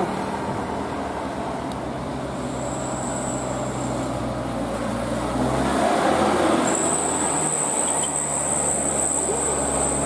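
A large vehicle's engine running amid road traffic noise; its low hum shifts in pitch about six seconds in. A thin high whine comes in briefly around three seconds and again from about seven seconds.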